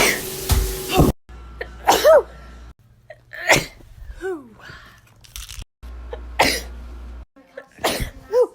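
A string of a person's sneezes, about seven in quick succession, each a sudden sharp burst, some with a short voiced 'ah' bending up and down in pitch. The steady background hum changes abruptly every second or few between sneezes.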